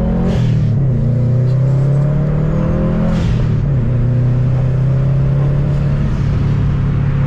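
2014 Subaru WRX's turbocharged boxer four-cylinder, breathing through an aftermarket intake, accelerating hard through the gears. The revs climb, drop at a gear shift about a third of a second in and again about three seconds in, each shift with a short rush of air, then rise again.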